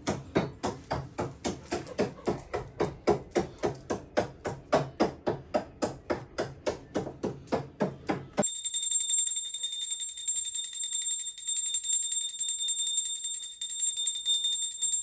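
Rhythmic percussion, about four beats a second, which stops abruptly about eight seconds in. A brass puja hand bell then rings rapidly and continuously, a steady high ringing.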